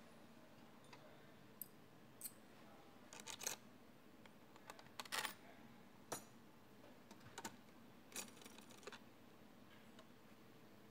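Faint, scattered clicks and taps of hand tools and small metal parts on an automatic transmission's valve body, coming in a few short clusters.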